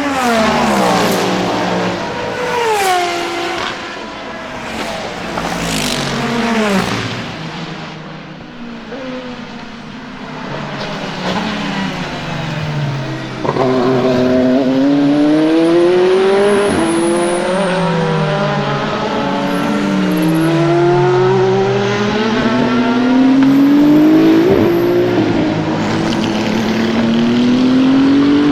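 Racing hypercar engines at full speed on a circuit. First several fast pass-bys, each note falling quickly in pitch as the car goes past. Then, from about halfway, an engine accelerating hard through the gears, its note climbing and dropping back at an upshift about every four seconds.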